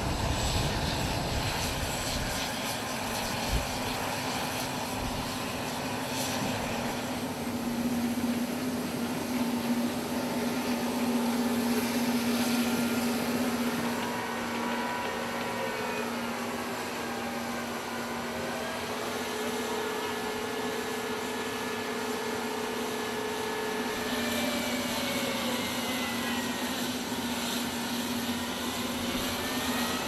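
Gas-turbine engines of an M1 Abrams tank and an LCAC hovercraft running: a steady whine holding one pitch, with higher tones sliding up and down now and then in the second half.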